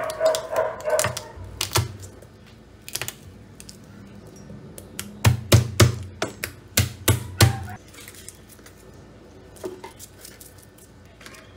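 Santoku knife knocking on a wooden cutting board as garlic cloves are trimmed and crushed under the blade: sharp knocks in two runs, one near the start and a faster one of about three a second in the middle, with fainter taps later.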